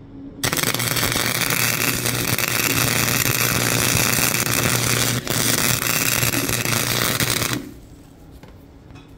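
Flux-core wire welder arc crackling and spitting as more weld is built up inside a nut over a broken exhaust stud on an aluminum LS cylinder head, with a steady low hum under it. It starts about half a second in, breaks off for an instant about five seconds in, and stops about a second and a half before the end.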